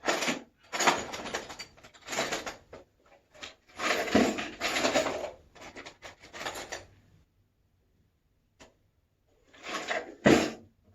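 Rummaging through tools: hard objects rubbing and clattering in irregular bursts, a pause of about two seconds, then more handling ending in a sharp knock near the end.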